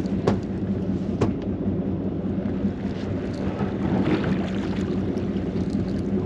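A boat engine running steadily with a low, even hum. Two sharp clicks sound over it in the first second and a half.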